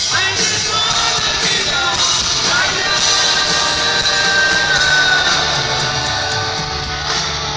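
Live hard rock band playing in an arena, with distorted electric guitars, drums and a singer. A long high note is held about halfway through.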